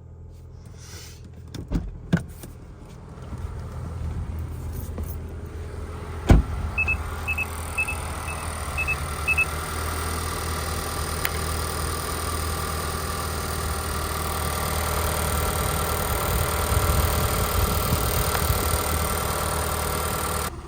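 2019 Mazda CX-5 running steadily just after a jump start from a weak battery. A door or hatch thuds shut about six seconds in, then the dashboard gives six quick warning beeps. The engine hum grows a little louder later on.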